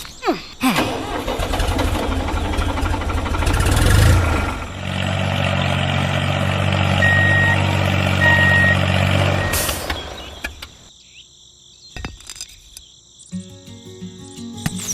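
Heavy vehicle engine running, first as a noisy rumble and then as a steady low hum, with a reversing beeper sounding twice about halfway through. Music starts near the end.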